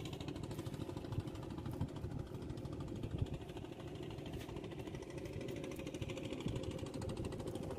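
A small engine running steadily, with a rapid, even knocking beat.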